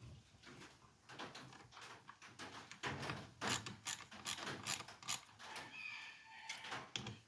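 Hand tool tightening the mounting screws of a newly fitted ignition coil on a Stihl MS 311 chainsaw: a string of irregular small clicks and scrapes, with a short squeak about six seconds in.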